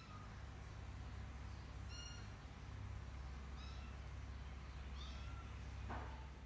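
Persian kittens mewing: four short, high-pitched mews about a second and a half apart, each dipping slightly in pitch, over a low steady hum, with a brief rustle near the end.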